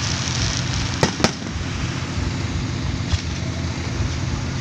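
Aerial fireworks bursting in the sky. Two sharp bangs land close together about a second in and a fainter one about three seconds in, over a continuous noisy background.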